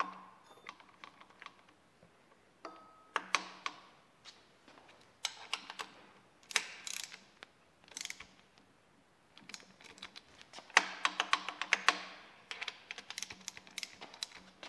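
Hand socket ratchet clicking in several short runs as a bolt at the timing belt tensioner is turned, with scattered metal clinks and taps of the parts being handled between the runs.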